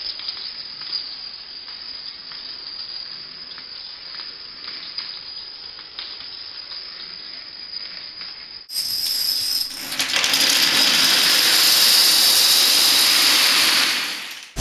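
Dominoes toppling in a long chain, a fast, steady patter of small clicks. About nine seconds in it gives way to a much louder, dense clatter as the thousands of dominoes in a 21x21 3D domino pyramid collapse, fading out near the end.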